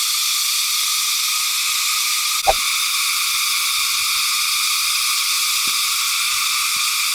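A steady, dense chorus of calling frogs, unbroken and high-pitched, with one short click about two and a half seconds in.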